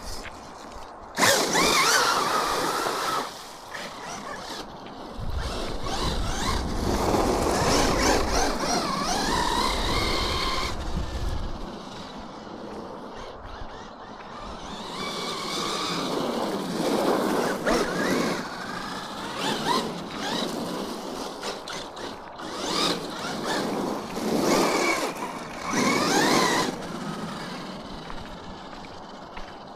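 Electric RC car driving in bursts, its motor whining up and down in pitch as it speeds up and slows down, with tyres churning through wet mud and water. The loudest bursts come about a second in, around seven to eleven seconds in, and near the end.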